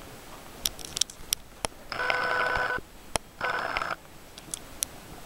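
Camcorder zoom motor whirring in two bursts, the first just under a second, the second about half a second, a steady buzzy whine as the lens zooms in. Sharp clicks come before, between and after the bursts.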